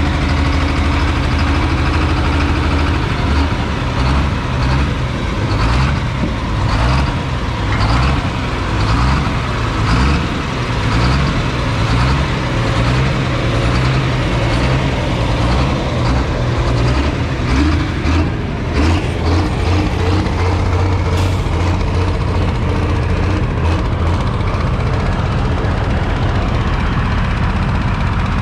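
A heavy vehicle engine running loudly and steadily, deep and pulsing, with no let-up.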